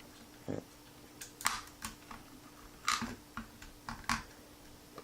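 Scattered light clicks and taps of small RC car parts being handled, as a driveshaft outdrive is slid onto the center differential's output shaft.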